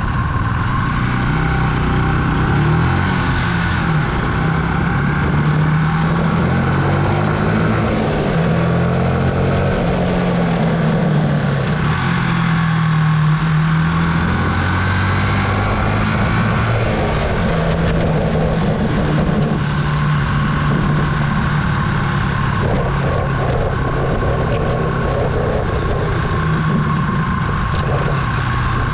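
Archive AM60 125cc single-cylinder motorcycle engine under way. Its revs repeatedly rise and drop back as it goes through the gears.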